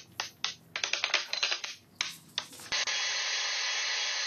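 A quick run of sharp clicks and knocks as a clamped wooden frame is handled. About two-thirds of the way in, a King radial arm saw starts running and cutting through wood with a steady noise.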